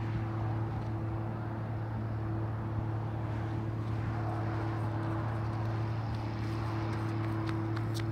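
A steady low machine hum, one even tone with a fainter higher one over a soft hiss; a few faint clicks near the end.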